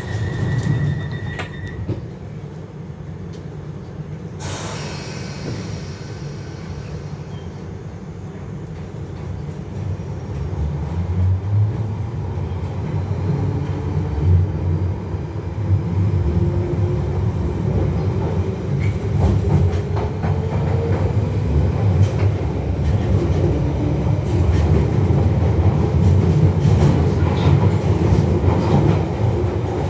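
London Underground 1973 Tube Stock train running and gathering speed, with a deep rumble of wheels on rail that grows louder. A whine from the motors climbs slowly in pitch partway through. A steady high tone stops about two seconds in.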